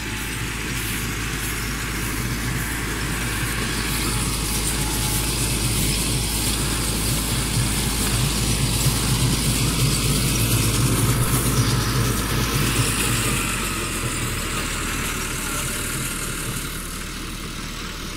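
Massey Ferguson 385 tractor's four-cylinder diesel running steadily as it works a rice field with its cutter. It grows louder as the tractor passes close about ten seconds in, then fades as it moves away.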